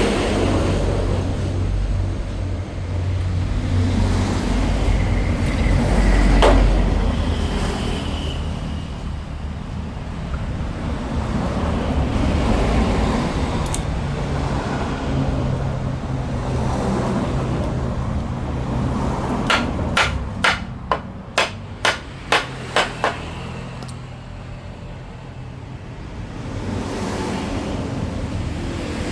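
Steady low rumble, like traffic or running machinery. About two-thirds of the way in comes a quick run of about nine sharp knocks, about two a second, typical of hammer taps on wood.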